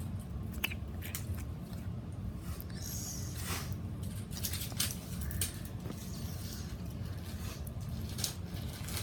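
Slime being squeezed and poked by hand: irregular wet squishes and small sticky crackling clicks, over a steady low hum.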